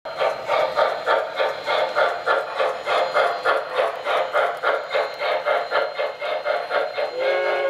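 O gauge model steam locomotive's sound system chuffing steadily at about three chuffs a second; about seven seconds in, its steam whistle starts to blow, a chord of several tones.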